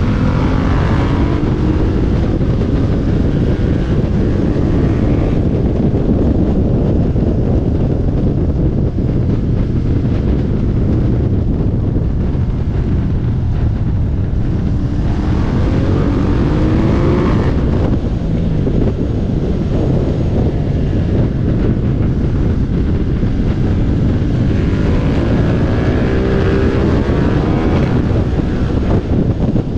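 Motorcycle engine running under heavy wind buffeting on the microphone. The engine's pitch climbs and falls away three times, at the start, about halfway through and again near the end, as the bike accelerates out of bends.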